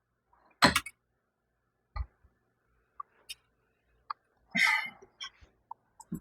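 Scattered clicks and knocks of a steel T-post being worked and bent straight in a bench vise: a louder knock about a second in, smaller ticks spread through, and a short rasp near the end.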